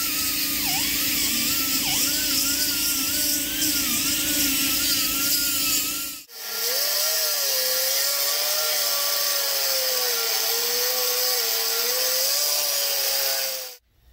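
Air-powered hand grinder running under load against the metal of a boat's hull, its pitch wavering as it bites. About six seconds in it cuts to the same tool grinding a flat metal plate at a lower pitch, which stops abruptly near the end.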